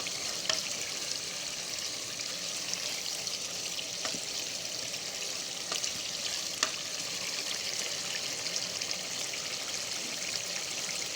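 Pot of sliced tomatoes in groundnut oil boiling, a steady bubbling hiss with a few sharp pops, still watery and not yet cooked down to the oil.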